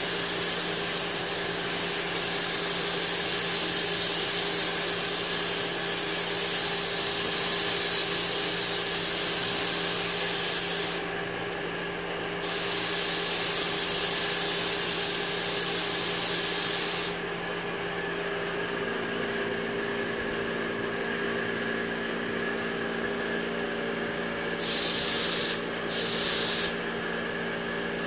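Air-fed gravity-cup paint spray gun hissing as it sprays paint onto a car body panel. There is one long spray pass of about eleven seconds, a brief stop, another pass of about five seconds, then two short bursts near the end.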